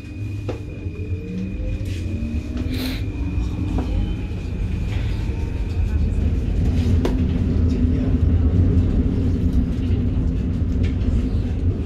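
Paris Métro train running, heard from inside the carriage: a steady low rumble that grows louder, with a rising whine in the first few seconds as it speeds up.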